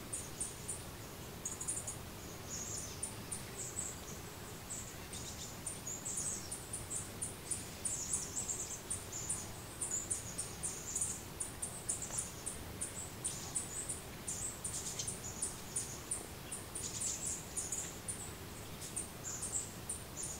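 Small birds chirping: rapid, very high-pitched chirps in irregular runs of several a second, over a faint steady background noise.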